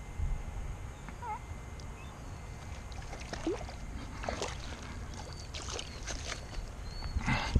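Hooked largemouth bass splashing in shallow, weedy water at the bank as a hand reaches for it, with a louder splash near the end, over a low wind rumble on the microphone.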